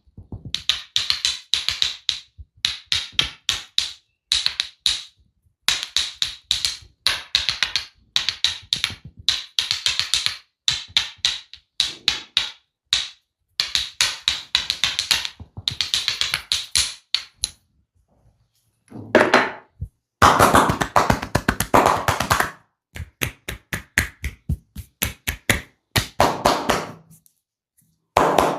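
Rapid percussive massage strokes tapping on the body, in quick runs of many taps lasting about a second each with short pauses between. About two-thirds of the way through, the strikes turn louder and fuller for a couple of seconds.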